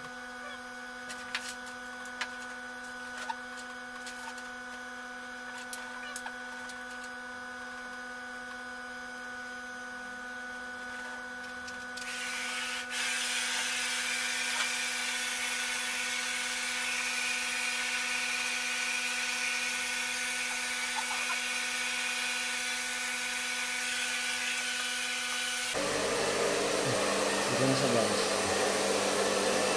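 A steady motor hum with a few light clicks, then about twelve seconds in a handheld electric hair dryer comes on and blows with a loud, even rush of air. The sound shifts in tone near the end.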